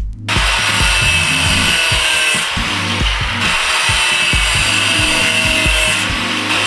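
Angle grinder cutting metal, starting about a third of a second in and then running steadily with a high whine.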